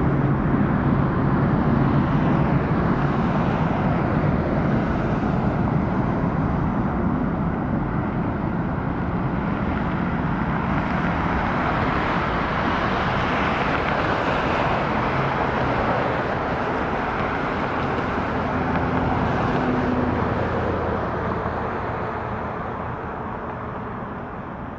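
Airbus A350-941's Rolls-Royce Trent XWB turbofan engines during landing and rollout: a steady, loud jet rush that swells slightly midway and fades over the last few seconds.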